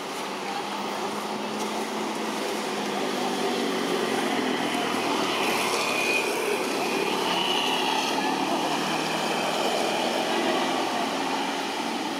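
Steady outdoor background noise with an indistinct murmur, growing a little louder about two seconds in; no distinct animal call stands out.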